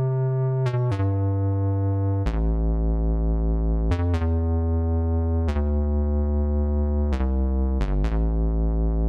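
An Ensoniq ESQ-1 digital wave synthesizer patch, played through Cherry Audio's software emulation, sounding sustained chords over a deep bass note, changing chord every one to two seconds.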